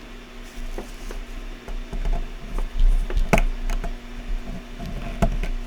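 Light clicks and taps of small parts being handled on a workbench, with one sharper click about three and a half seconds in, over a steady low hum.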